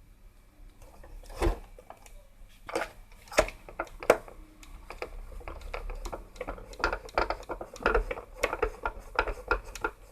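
Irregular clicks, taps and light knocks of hard plastic and small metal parts being handled on an opened radio cassette recorder.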